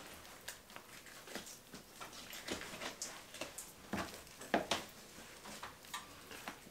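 Boning knife seaming muscle off an elk hind quarter: faint, irregular small clicks and cutting sounds, with a few sharper clicks about four and four and a half seconds in.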